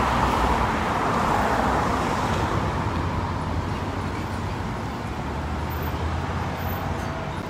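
Street traffic noise, a passing vehicle loudest in the first couple of seconds and slowly fading.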